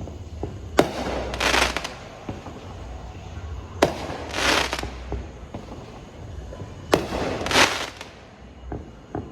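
Consumer fireworks going off: three sharp bangs about three seconds apart, each followed about half a second later by a short burst of crackle.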